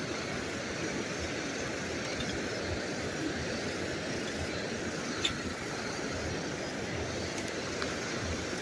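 Steady rushing of a fast-flowing river, an even hiss of water, with a single faint click about five seconds in.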